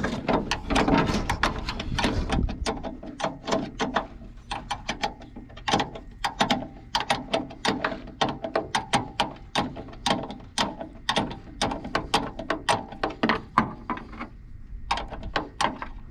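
Spanner being worked on a bolt: irregular metallic clicking and knocking, several clicks a second.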